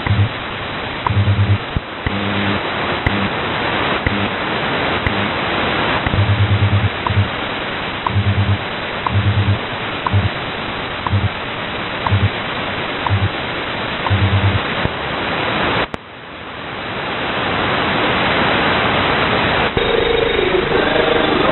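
AM-demodulated radio static and hiss from an RTL-SDR Blog V4 running in SDR# v1919, broken by short, irregular low buzzing pulses about once a second. The uploader reports this fluttering on all AM signals in this program but not in others. About sixteen seconds in the audio cuts out briefly and the hiss swells back, and near the end faint tones of a station come through.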